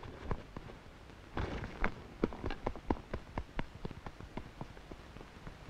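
Children's running footsteps: a quick, irregular string of light taps, thickest through the middle.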